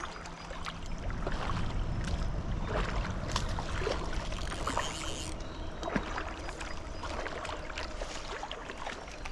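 Creek water splashing and sloshing, with many small irregular splashes and ticks, while a hooked smallmouth bass is played in close toward the net.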